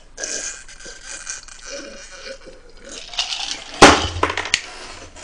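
A drinking glass set down hard on the table: a loud clink and knock about four seconds in, followed by two lighter knocks.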